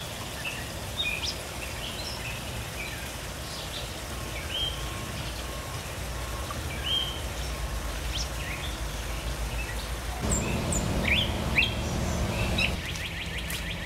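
Small songbirds chirping and calling with short, slurred notes over a low steady outdoor rumble. About ten seconds in the rumble grows louder, and near the end a fast, even trill joins.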